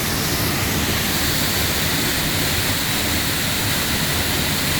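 Roar of a large waterfall heard from behind the falling curtain of water: a steady, loud rush of crashing water, with spray striking the microphone.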